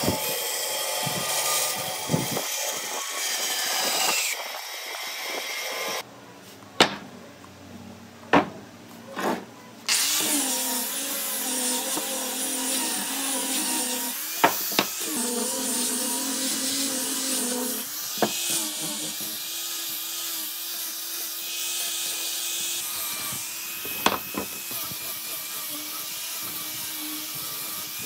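Electric woodworking power tool running with a steady whine. It stops for a few seconds about six seconds in, when a few sharp knocks sound, then starts again and runs on, its pitch settling a little lower about eighteen seconds in, with the odd sharp knock of wood.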